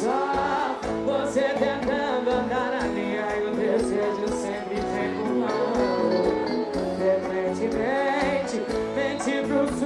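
Live sertanejo concert music: a woman singing a held, wavering melody over a full band.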